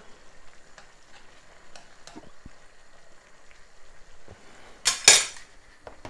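A metal spoon clicking and scraping against a ceramic-coated frying pan as a tablespoon of butter is knocked into stew simmering on low heat, with faint sizzling underneath. One short, loud rasp of the spoon on the pan about five seconds in.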